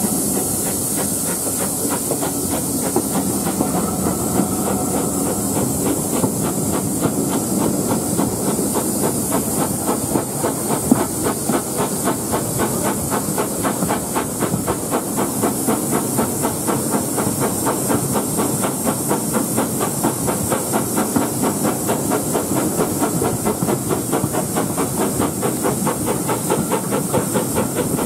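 Steam locomotive working a train, heard from a carriage close behind it: a steady hiss of steam with a rapid, even beat of exhaust chuffs.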